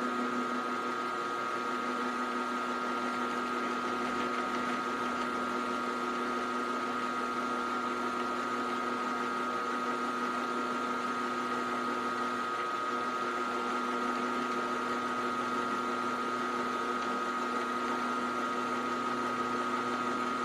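Milling machine spindle running a roughing end mill that cuts along the side of a metal blank held in a vise, a steady machine whine with the hiss of the cut. This is the last pass squaring up the fourth side of the blank.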